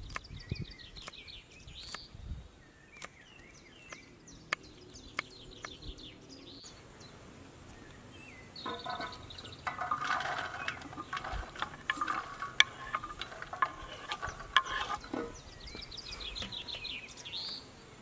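Outdoor rural ambience: small birds sing short repeated chirping trills several times over, with a busier, louder run of bird calls in the middle. Scattered sharp clicks and knocks run throughout.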